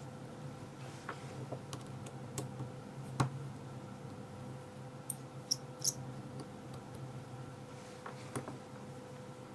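Scattered small clicks and taps of a picked-open pin-tumbler lock cylinder and tools being handled while it is taken apart, a few sharper ticks about three and five to six seconds in, over a faint steady hum.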